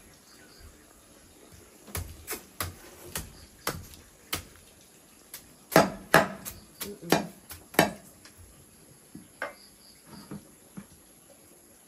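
Kitchenware clattering: irregular sharp knocks and clinks of dishes, pots and utensils. A few start about two seconds in, the loudest cluster comes around six to eight seconds, and a few scattered knocks follow.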